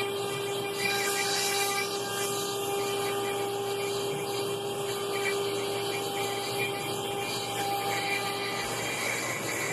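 Spindle of a Works B CNC router running steadily as it cuts a wooden shelf panel: a constant whine over an even cutting noise.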